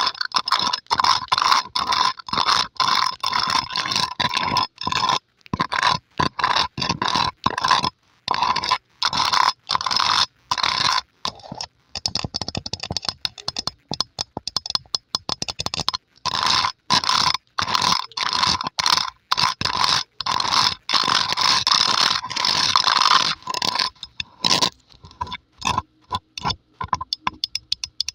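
Long polished fingernails scratching rapidly over a microphone's metal mesh grille, close to the mic, in quick back-and-forth strokes. Near the end the scratching thins out into scattered short nail taps.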